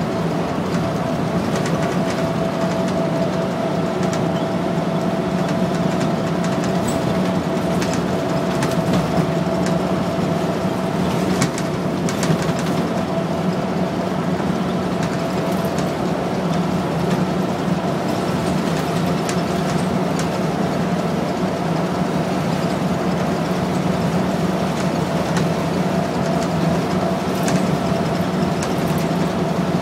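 Inside a 2001 New Flyer C40LF transit bus cruising at steady freeway speed: its Cummins C Gas Plus natural-gas engine and Allison B400R automatic transmission drone at an unchanging pitch, with a steady higher tone above it and road noise. A few clicks from the cabin come through near the middle.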